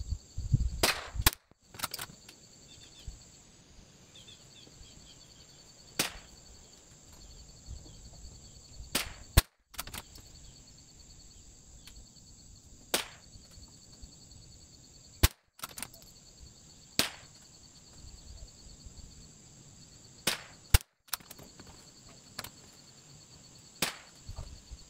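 A Bergara BMR bolt-action .22LR rimfire rifle firing single shots from a bench rest, one sharp crack every two to four seconds. Steady insect chirring runs underneath.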